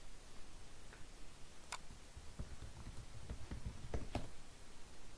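Computer keyboard keys clicking as a short search phrase is typed: a single click, then a quick run of keystrokes from about two and a half seconds in to about four seconds in.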